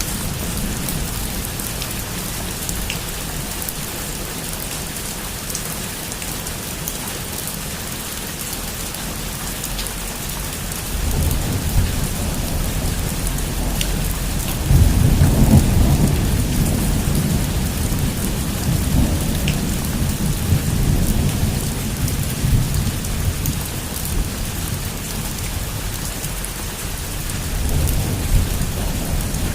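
Heavy rain falling steadily on a roof, an even hiss, with thunder rumbling in: it builds about a third of the way in, is loudest around the middle, fades slowly, and swells again near the end.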